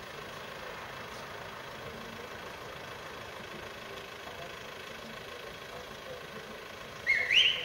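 A car engine idling steadily in the street. About seven seconds in, a sudden short, shrill sound rises in pitch and stands out loudly over it.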